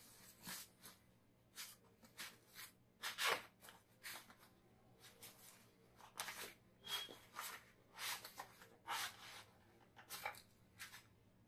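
Parcel wrapping being pulled open by hand: a string of irregular short rustles and crackles of packaging.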